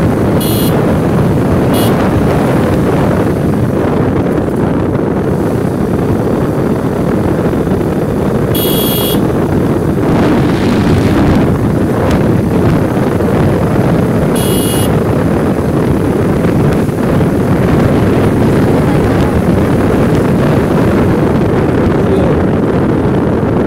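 Loud, steady wind buffeting the microphone, as on a moving ride in the open, with a few short high-pitched tones cutting through it.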